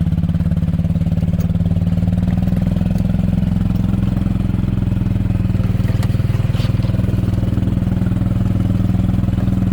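Golf cart engine running at a steady speed while the cart is driven along.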